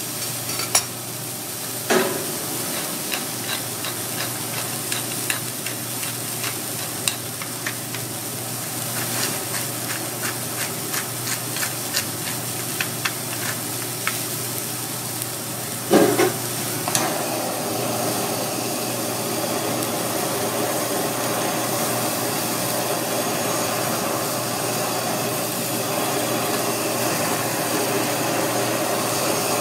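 Thick pork steak on a hot steel teppanyaki griddle with a steady sizzling hiss, while salt and pepper grains land on the steel in many quick light ticks; a metal spatula knocks on the griddle twice, about two seconds in and just past halfway. In the second half a steadier rushing noise takes over, with a handheld gas blowtorch flame playing on the pork near the end.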